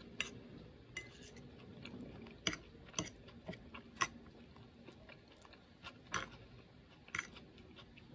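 A metal fork clinks and scrapes against a plate as food is gathered, with about eight sharp clinks at irregular intervals; the loudest comes about four seconds in. Quiet chewing runs underneath.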